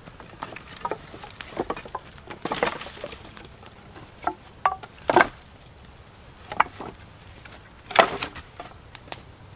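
Dry wooden sticks and poles knocking and clattering against each other as they are picked up from a pile and leaned upright against a teepee fire, a scattering of hollow knocks with the loudest about five and eight seconds in.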